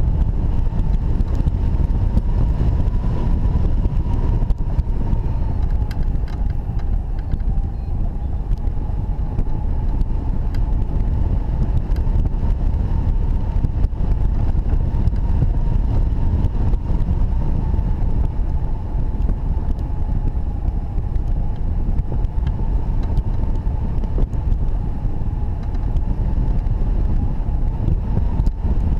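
Airflow rushing over a hang glider's wing-mounted camera in flight, a loud, steady low rumble of wind on the microphone. A steady whistle sits over it, drifting slightly in pitch.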